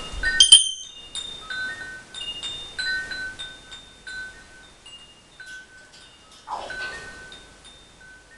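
Wind chimes tinkling: many short ringing notes at a few fixed pitches, each struck and fading, thinning out towards the end. A sharp, louder sound comes about half a second in, and a brief rising note about six and a half seconds in.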